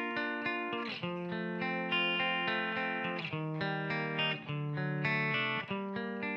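Electric guitar played through a Marshall JMP 2203 amp simulation and a Torpedo Wall of Sound cabinet simulation, with a new note or chord struck every second or two and left to ring. The whole signal is compressed in series with no dry signal mixed in.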